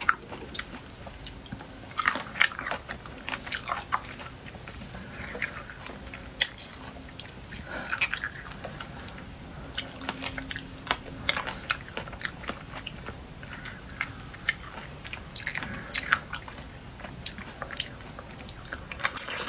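Biting into and chewing large fresh cherries close to the microphone: clusters of sharp, clicky bites with quieter chewing between.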